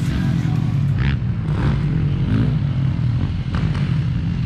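A motor vehicle engine running at a steady speed, with a few brief clattering knocks over it.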